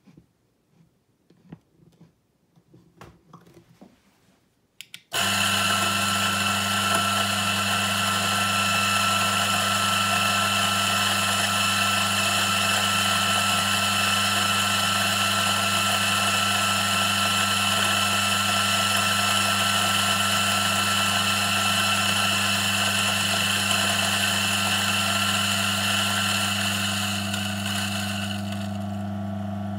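Electric espresso grinder switching on about five seconds in and grinding coffee steadily, a low motor hum under a high whirr. Near the end the grinding whirr fades while the motor keeps humming.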